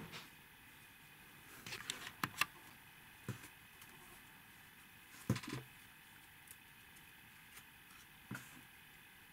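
Light clicks and taps of small model-kit parts being handled and pressed out of their pre-cut sheet, scattered and irregular over a faint steady hum, the loudest tap about five seconds in.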